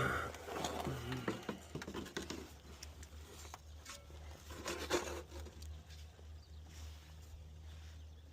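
Hand tools clinking and rattling, a socket and extension being handled, with a sharper knock at the start and another about five seconds in, over a steady low hum.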